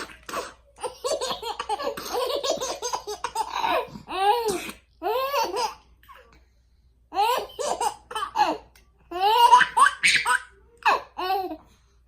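A baby laughing in repeated short, high-pitched bursts, with a pause of about a second midway.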